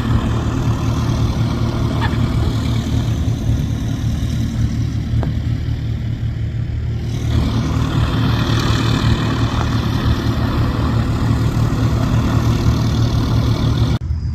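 Light propeller aircraft's piston engine running steadily with a low, even drone, its tone sweeping about halfway through as it moves. The sound drops off abruptly near the end.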